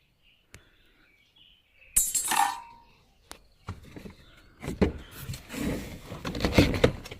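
Metal washing-machine parts and tools being handled during a repair: a short clinking scrape about two seconds in, then a run of irregular clicks, clinks and knocks from about four seconds on.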